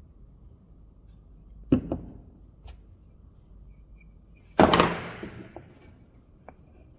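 Hard knocks in a woodshop: a quick double knock, then a louder knock with a short rattling tail about halfway through, and a few light clicks between.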